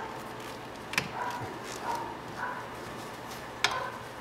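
Two sharp clicks, about a second in and again near the end, as a plastic dust cap is worked off a brake caliper's guide-bolt hole. Faint short squeaks come in between.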